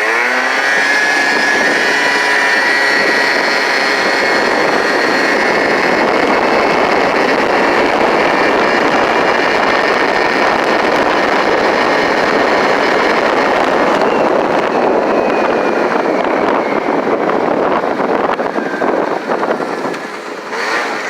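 Hyosung SF50 scooter's 50cc two-stroke engine pulling away under hard throttle, rising sharply in pitch at the start and then running at high revs, mixed with wind rushing over the microphone. The revs stay high because the variator rollers are too light, and it eases off near the end.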